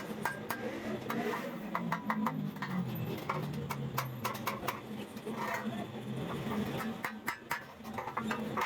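Irregular light metallic clinks and taps, as of metal parts and tools being handled, over a steady low hum.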